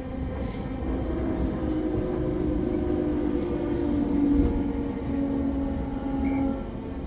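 Inside a 209 series electric commuter train car running on the line: the MT68 traction motors under GTO-VVVF inverter control give a steady whine over the rumble of wheels on rail. The whine drops away about six and a half seconds in.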